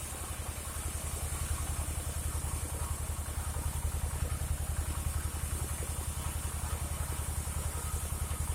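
Engine of a portable band sawmill (gergaji slendang) running steadily with an even low throb and a steady high hiss.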